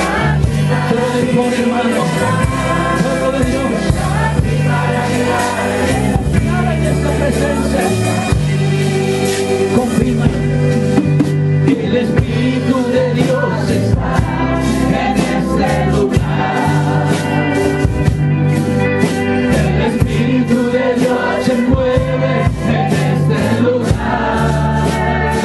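Live church worship music: a group of women singing together into microphones over electric bass guitar and hand percussion, with a metal güira scraped in a steady rhythm.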